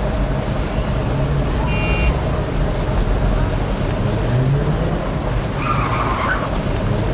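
City street traffic: a steady wash of engines and tyres with a low engine hum. There is a brief high-pitched squeal about two seconds in and a short wavering higher sound near six seconds.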